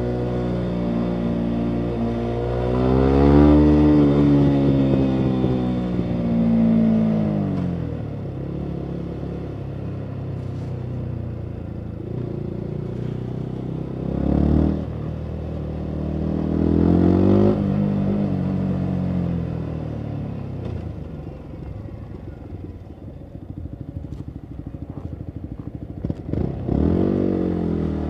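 Yamaha MT-125's single-cylinder 125 cc four-stroke engine through a full Akrapovic exhaust, accelerating and easing off twice, its note rising and falling in pitch. Near the end it drops low and pops and crackles off the throttle, then picks up again.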